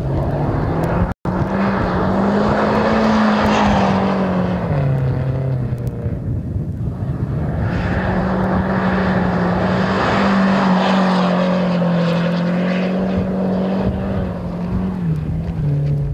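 Mitsubishi Starion rally car's turbocharged engine running hard as the car drives at speed and slides by. The engine note drops about five seconds in and climbs again a couple of seconds later, and the sound is loudest as the car comes closest. There is a brief dropout about a second in.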